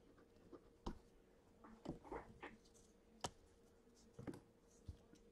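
Near silence: room tone with a faint steady hum and a few scattered faint clicks and taps, the sharpest a little past the middle.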